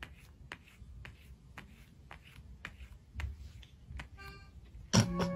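A cat's paw tapping lightly and repeatedly on a tablet's glass touchscreen, about two or three faint taps a second. Near the end a loud ringing note sounds and holds as music starts playing.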